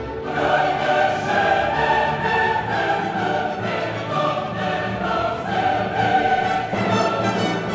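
Orchestral music with a choir singing, loud and steady, full of long sustained notes.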